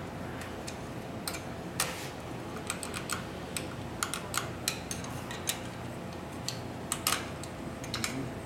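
Irregular metallic clicks and clinks of hand tools working on the clutch of a 1938 Harley-Davidson Knucklehead as its parts are taken off, over a faint steady hum.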